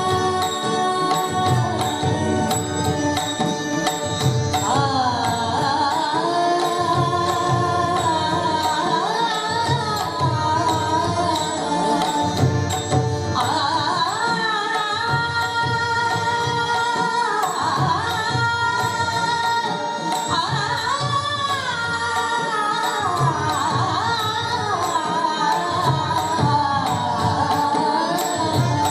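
Marathi devotional abhang performed live: steady harmonium notes, joined about four seconds in by a woman's voice singing gliding, ornamented phrases, over a continuous tabla and pakhawaj rhythm.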